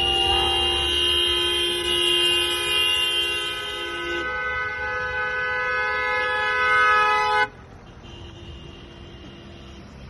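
Several car horns held down at once as a convoy of cars drives past, their steady tones overlapping. One horn stops about four seconds in, and most of the rest cut off suddenly a few seconds later, leaving a fainter horn sounding.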